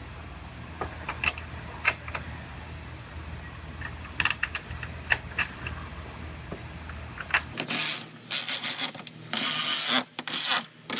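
Scattered light clicks and clinks of small hardware being handled while a tail light is fitted on a car body. About seven and a half seconds in, a series of louder, roughly second-long scraping, rustling bursts begins.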